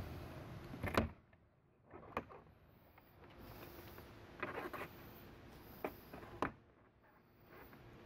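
RV Lock keyless entry door handle knocking and clicking against the RV door as it is pressed and worked into place by hand: a handful of short, light knocks, the loudest about a second in.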